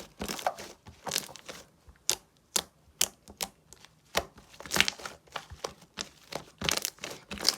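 Slime being squeezed and pressed by hand, giving a quick, irregular run of short, sharp crackles and clicks.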